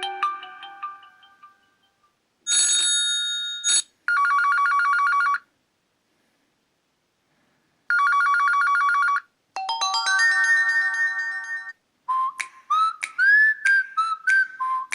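Huawei P10 preloaded ringtones played back one after another. A mallet-like melody fades out, then come a bright chime, a fast electronic trill heard twice with a pause of a couple of seconds between, a rising arpeggio, and near the end a run of short notes that slide upward.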